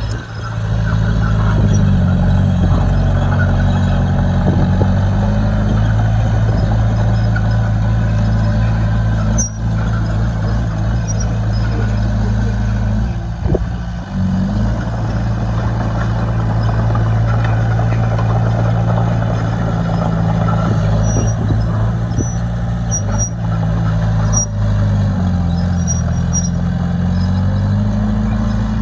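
Diesel engine of heavy earthmoving machinery running hard. It picks up about a second in and its pitch shifts a few times as the revs change.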